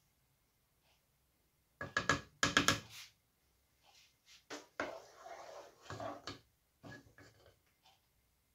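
Wooden spoon knocking against a pot and stirring thick tomato sauce: a quick run of sharp knocks about two seconds in, then a stretch of stirring noise, with a few light taps near the end.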